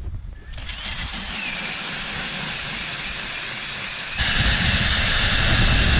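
Cordless drill spinning a homemade ice auger as it bores through pond ice: a steady motor whir with the noise of the bit cutting, growing much louder about four seconds in.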